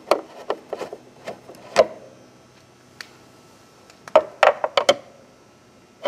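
Scattered light knocks and rubbing of a wooden pointer stick against an outboard motor's cowling, with a quick run of several knocks about four seconds in.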